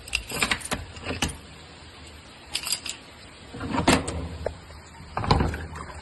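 A padlock being unlocked with a key and its metal hasp and latch clanking as a wooden door is opened: a series of metallic clicks, rattles and clanks, the loudest about four seconds in and again just past five seconds.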